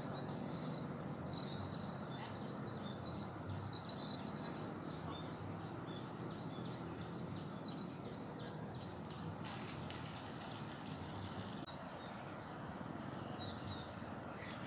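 Insects chirping on and off over a steady low rush of outdoor noise. Near the end a louder, steady high insect buzz sets in.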